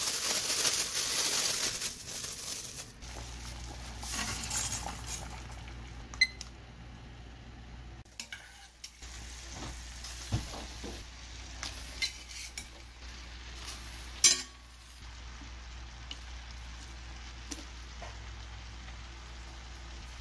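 Crinkling of a plastic bag as dried seaweed is crushed in it by hand, for the first few seconds. Then light sizzling with scattered clinks of metal utensils against a stainless steel frying pan as pasta is stir-fried, one clink sharp and loud, over a steady low hum.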